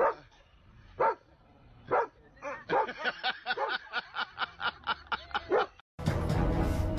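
A husky barking: three single barks about a second apart, then a quick run of short barks, about four a second. About six seconds in the barking cuts off and music starts.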